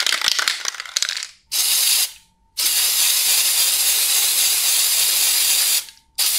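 Aerosol spray paint can: the mixing ball rattles as the can is shaken, then the spray hisses in three bursts, a short one, a long one of about three seconds, and another short one near the end.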